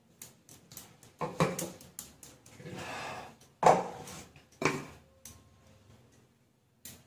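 Kitchen containers and utensils being handled: a run of light clicks and clatters, with three louder knocks about one and a half, three and a half and four and a half seconds in.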